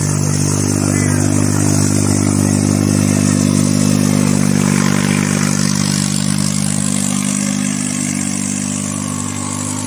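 New Holland 3630 tractor's diesel engine running steadily under load as it pulls a sandbag-weighted disc harrow through ploughed soil, a little quieter near the end as it moves past.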